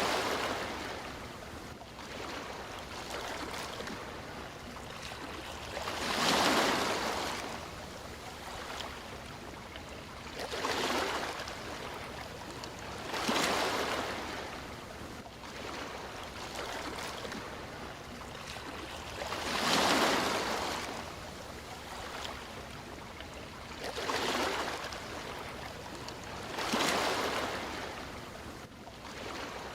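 Sea waves breaking, each surge of surf swelling and fading over a second or two, every few seconds, over a steady wash of water.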